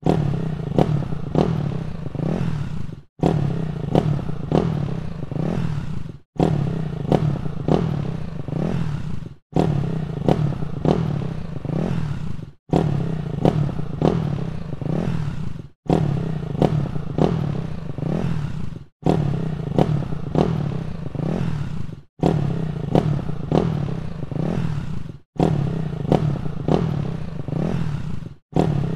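Light dirt bike's exhaust running at a fast idle with a series of quick throttle blips, the revs rising and falling again and again. The recording repeats in stretches of about three seconds, each cut off by a brief dropout to silence.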